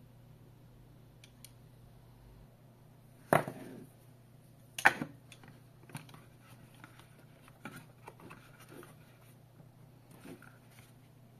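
Handling noise from a bone conduction headset and its cardboard box: two sharp knocks about a second and a half apart, then lighter clicks and rustles as the headset is laid into the box.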